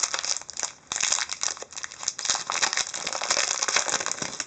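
Foil wrapper of a hockey card pack crinkling and crackling as it is handled and opened, a dense run of quick crackles.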